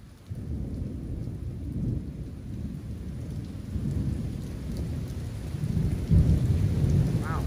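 Thunder rumbling over heavy rain. The low rumble breaks in suddenly just after the start and swells to its loudest about six seconds in.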